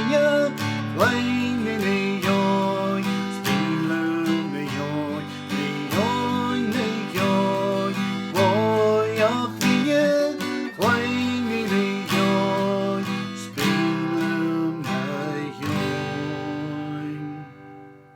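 Solo acoustic guitar playing an instrumental passage of plucked and strummed notes, ending on a final chord that rings and fades away near the end.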